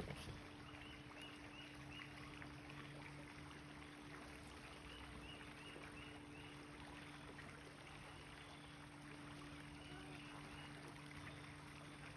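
Near-silent outdoor background: a faint steady low hum, with faint, quick, high chirps in short runs about a second in and again around four seconds in.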